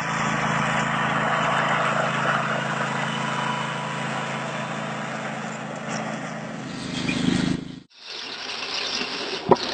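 Flatbed utility truck's engine running steadily at low speed with an even hum. It cuts off abruptly near the end, giving way to a thin hiss with a few sharp clicks.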